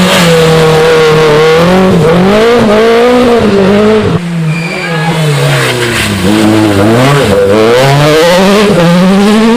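Rally car engine driven hard, its pitch repeatedly rising and dropping as it revs and shifts. It eases off briefly about four seconds in, with a short high squeal, then pulls hard again.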